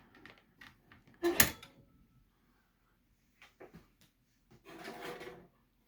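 Handling noises from a record player being taken apart: a sharp knock about a second and a half in, a few small clicks, and a short scraping rustle near the end.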